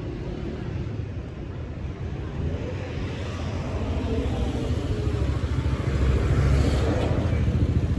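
A car driving past close by on the street, its engine and tyre noise growing steadily louder to a peak about three quarters of the way through.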